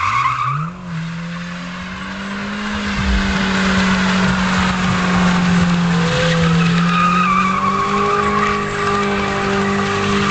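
Honda Civic hatchback doing donuts: engine held at high revs while the spinning tyres squeal on the asphalt. The engine note climbs about half a second in, then holds steady, and the tyre squeal comes through more plainly in the second half.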